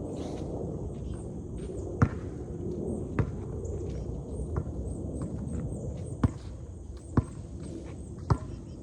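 A basketball bouncing: five sharp, separate bounces spaced one to three seconds apart, over a steady low rumble of background noise.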